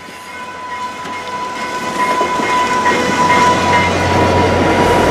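VIA Rail passenger train led by an F40PH diesel locomotive rolling past, the train noise growing steadily louder, with a steady high whine over it that fades near the end.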